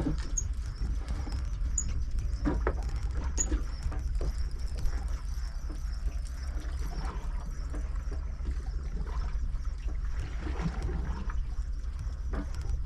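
Steady low rumble on a boat at sea, with faint scattered clicks and short squeaks over it.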